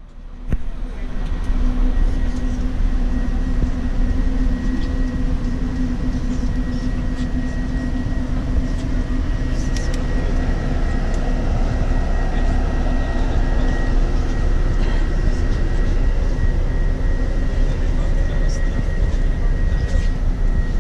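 Steady drone of a running vehicle, a low rumble with a constant hum and a faint high whine, starting suddenly about half a second in.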